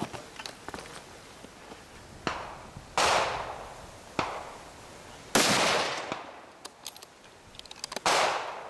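Rifle shots: three loud reports roughly two and a half seconds apart, each ringing out and fading over about a second, with fainter sharp cracks between them and a few light clicks shortly before the last shot.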